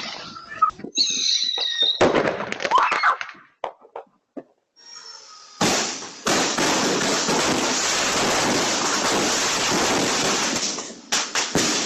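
Fireworks going off: scattered pops and crackles, then from about halfway a dense, continuous crackling hiss for about five seconds that stops near the end, followed by a few sharp cracks.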